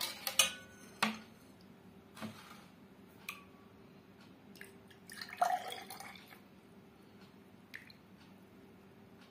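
Steel ladle scooping aam panna, a thin raw-mango drink, from a steel pot and pouring it into a glass: a few sharp clinks of the ladle against the pot and glass, and liquid splashing into the glass about five seconds in.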